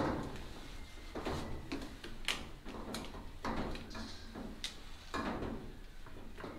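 Irregular series of short knocks and clunks of hard objects, about one every half second to a second, several with a brief ringing tail.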